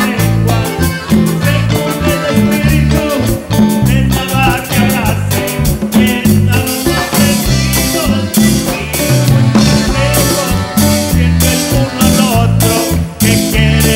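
Live band playing a Latin-style gospel song with a steady dance beat: accordion, electric guitars, bass and drums, with a man singing at the microphone.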